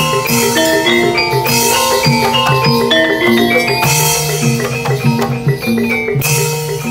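Javanese gamelan music accompanying a barongan dance: metallophones ring out a repeating melody over drums, with bright crashes every few seconds.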